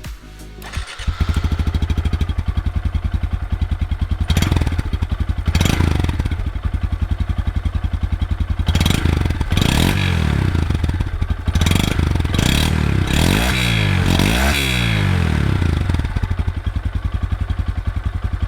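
A 2025 Honda Grom's single-cylinder engine starts about a second in and runs through its exhaust with a quick, even beat. It is revved several times in the middle, the pitch rising and falling with each blip, then it settles back to idle.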